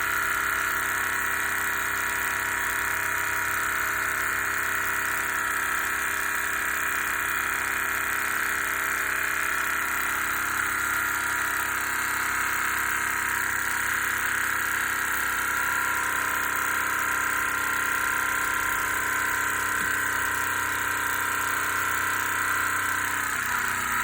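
Mamod SP5 toy stationary steam engine running steadily under steam, giving a fast, even mechanical whirr.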